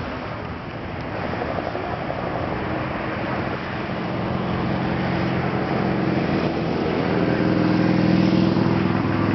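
Fire-fighting helicopter's rotor and engine drone, a steady pitched hum that grows louder from about four seconds in as the helicopter draws nearer.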